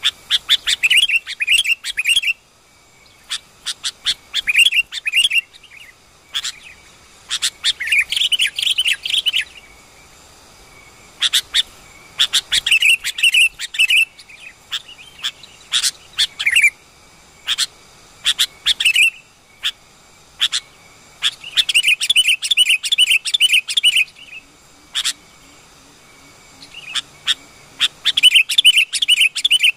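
Sooty-headed bulbul (kutilang) chirping in rapid bouts of about a second or two each, repeated many times with short pauses.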